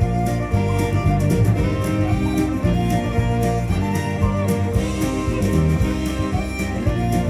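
Instrumental passage of a folk-rock song with no singing: fiddle and guitar over bass, with a steady beat.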